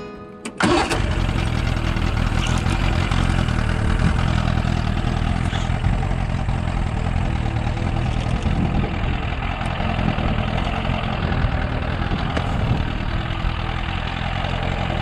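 Boat outboard motor starting up: it catches suddenly about half a second in and then runs steadily.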